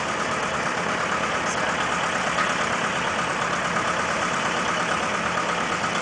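Classic John Deere tractor engine running steadily at idle, with a fast, even beat.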